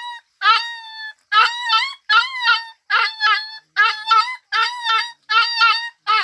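Dog whimpering in a steady run of short, high-pitched cries, roughly two a second, as a tokay gecko bites and hangs on to its nose.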